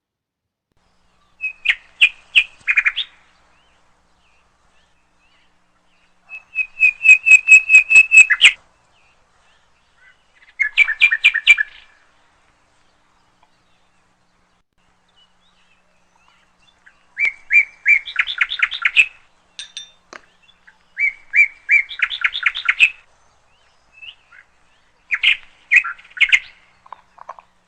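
A small songbird singing in six short phrases, each a quick run of repeated high chirping notes lasting a second or two, separated by pauses of a few seconds.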